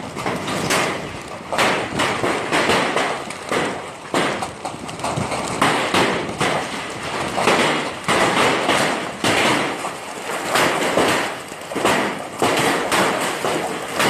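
Heavy hail falling: a dense, irregular clatter of hailstones striking hard surfaces, surging louder and softer every second or two.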